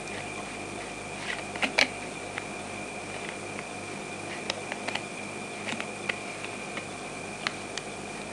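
Steady background hiss with a constant thin high whine, broken by scattered sharp clicks and ticks, several close together about a second and a half in.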